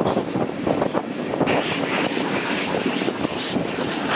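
Steam train of Slovenian Railways locomotive 25-026 running at speed: continuous rolling noise of wheels and coaches with wind. About a second and a half in, a sharper, evenly repeating beat comes in, about three times a second.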